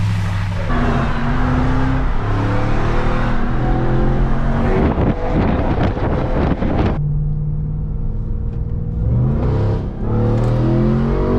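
Supercharged 6.2-litre Hemi V8 of a 2021 RAM 1500 TRX revving up and down, under a loud rushing noise for the first half that cuts off suddenly. Then the engine runs steadier and revs up again near the end.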